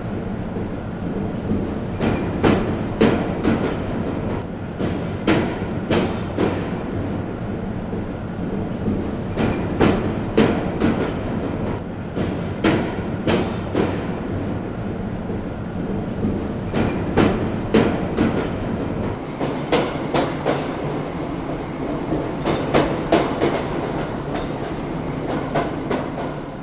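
Train running along the track: a steady rumble with the wheels clacking over rail joints in regular pairs of clicks, the clickety-clack of a moving train.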